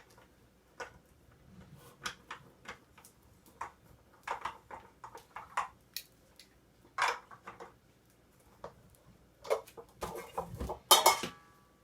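A wrench clinking and scraping against the metal parts of a floor lamp while a stuck fitting is worked loose, in scattered short knocks. A louder squeaky scrape comes near the end.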